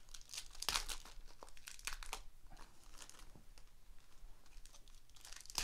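Foil trading-card pack wrappers crinkling and tearing, with the rustle of cards being handled, in short irregular rustles; the loudest comes a little under a second in.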